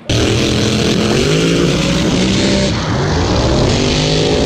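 Twin-turbo Corvette drag car at full throttle, launching and accelerating hard, heard from a camera on its body with heavy wind noise. The engine note climbs in pitch, with a brief dip about two and a half seconds in.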